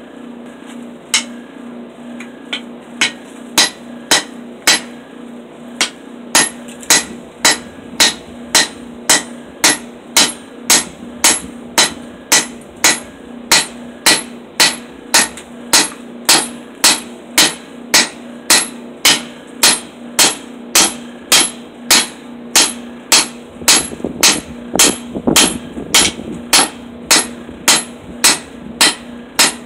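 Hand hammer striking red-hot steel bar stock on the anvil of a bench vise, forging a blade blank: a few spaced blows at first, then steady, even blows at about three every two seconds, each with a bright metallic ring. A steady low hum runs underneath.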